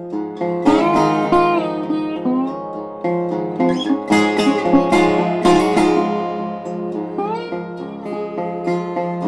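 Background music of a plucked acoustic guitar, with notes that slide in pitch.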